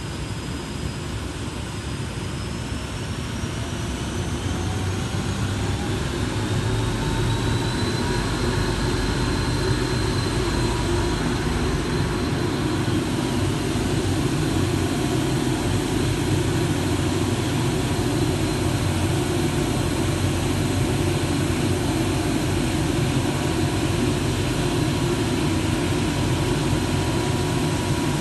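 Timesaver grinding and deburring machine running: a whine rises in pitch over the first several seconds as it comes up to speed, then holds steady over a loud, even machine noise.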